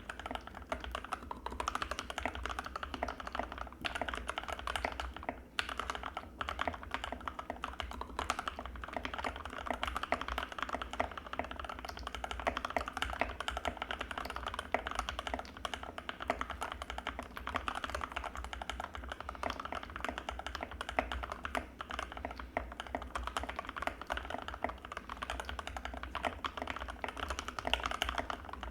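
Fast, continuous typing on an Anne Pro 2 mechanical keyboard with Gateron Red linear switches, the keystrokes clacking in a dense stream with a brief pause about five seconds in.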